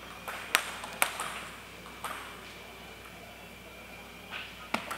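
Table tennis ball clicking against table and paddle: several sharp, irregularly spaced taps, most in the first two seconds and a quick pair near the end, each with a short hall echo.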